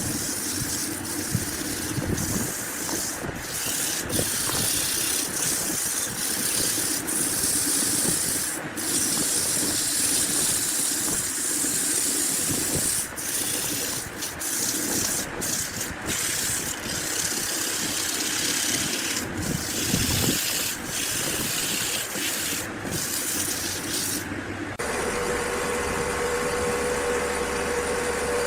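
Woodworking power tools running in a run of short cuts: a steady hissing machine noise, then about 25 s in a motor with a steady hum takes over.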